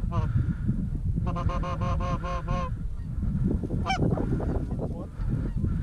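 Goose call blown to imitate Canada geese: a single honk, then a quick even string of about seven clucks, then a sharp rising note about four seconds in, meant to turn a distant single goose toward the decoys. Low wind rumble runs underneath.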